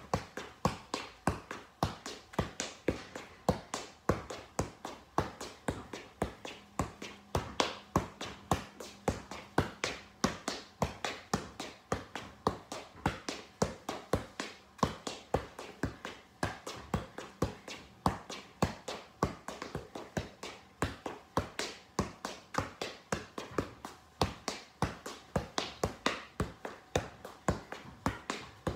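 Soccer ball being juggled on the feet: a steady, even run of short dull taps of ball against shoe, about three a second, without a break.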